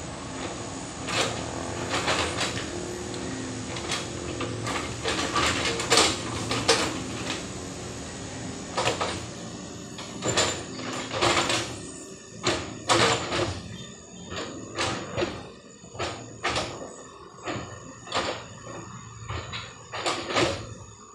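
Excavator working: its diesel engine hums steadily and a string of sharp knocks and clanks comes from the machine every second or so. The engine hum fades about halfway through while the knocks go on, coming closer together.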